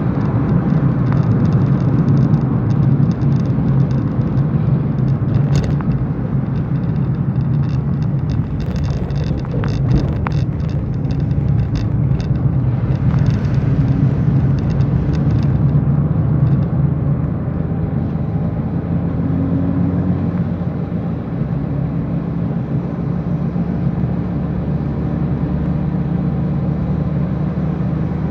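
Car driving on a wet road, heard from inside the cabin: a steady low drone of engine and tyres, with scattered light ticks and crackles in the first half.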